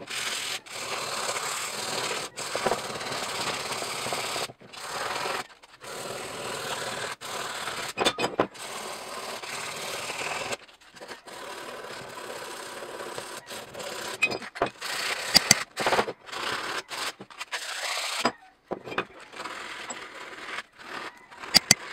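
Sandpaper rubbed by hand over the painted metal body and the blade of a small carpenter's hand plane, stripping old paint and rust before repainting. The rasping strokes come in runs broken by short pauses, with a few sharp clicks.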